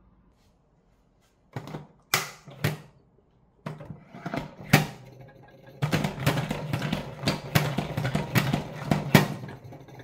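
OXO push-pump salad spinner being worked: a few separate plastic clacks, then the knob pumped about twice a second with sharp clacks over the whir of the spinning basket, which fades near the end.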